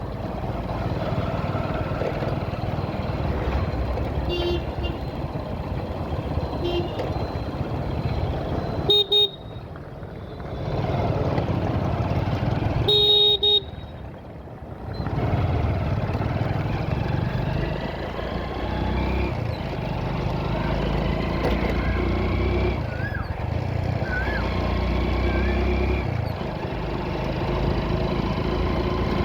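Vehicle riding through traffic: steady engine, road and wind noise. Short horn honks come about four and seven seconds in, and louder honks about nine and thirteen seconds in.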